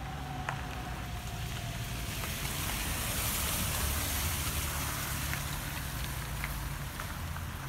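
A car drives up and past on a wet road, its tyres hissing loudest about halfway through, over a low engine hum. Early on, the departing electric train's faint whine slowly falls in pitch and fades out.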